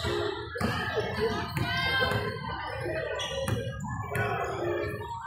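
Many overlapping voices of spectators and young players talking and calling out in a large gym.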